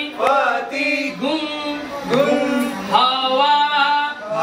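A voice chanting a mantra in a melodic, sung style: about four drawn-out phrases, the held notes gliding up and down.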